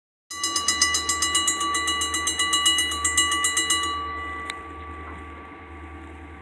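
Railroad grade-crossing bell ringing in rapid, evenly spaced strikes; it stops about four seconds in and its ring fades away. A low steady hum runs underneath.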